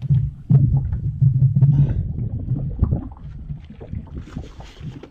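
Wind buffeting the microphone in an uneven low rumble, with irregular knocks and clatter from handling gear in a fishing kayak.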